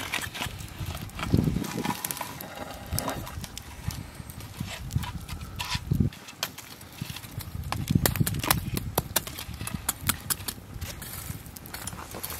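Hot coals and ash being raked and spread with a wooden stick across the cast-iron lid of a Dutch oven: irregular scraping, knocking and clicking of embers against the iron, with campfire crackle.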